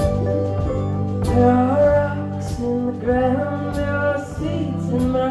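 Live band playing a song, with a sung vocal line coming in about a second in over steady instrumental backing.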